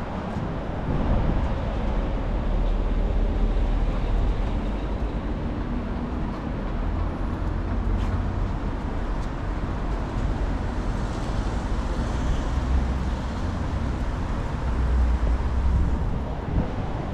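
City street traffic noise: a steady wash of passing vehicles with a low rumble that swells and fades several times.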